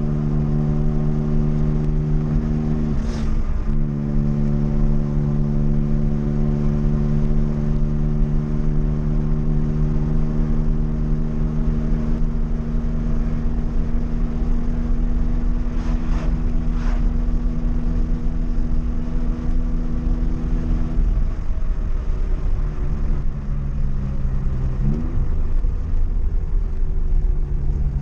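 Volkswagen Gol's engine running at steady revs while driving, with a constant drone. The revs dip briefly a few seconds in and settle to a lower note about three-quarters of the way through, with a short rise soon after.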